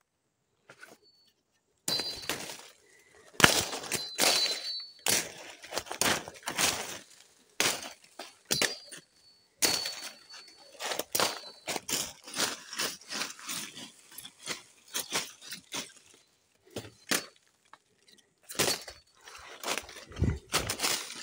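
A person pushing fast through forest undergrowth: footsteps crunching in dry leaf litter, with branches swishing and twigs snapping in quick irregular crashes. It starts about two seconds in.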